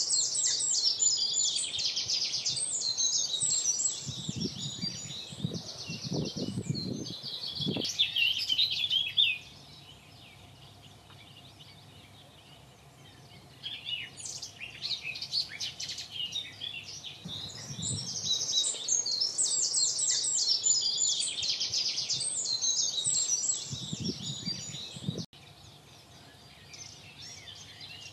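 Wild songbirds singing: rapid, high chirps and trills in two long stretches that each stop abruptly, with quieter gaps between. A low rumble sits under the song in places.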